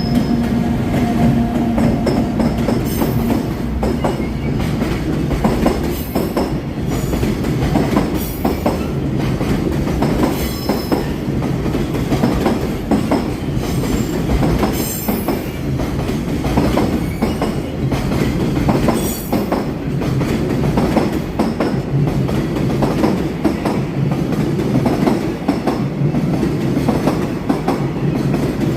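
Freight train hauled by an EF210 electric locomotive passing close by, a loud steady rumble with the wagons' wheels clattering over the rail joints all the way through.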